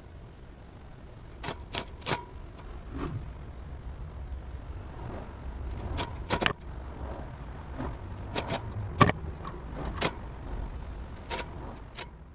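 A plastic wire fan guard used as a rat trap rattling and knocking on concrete in irregular sharp clicks, shifted about by the trapped rat inside, over a low steady rumble.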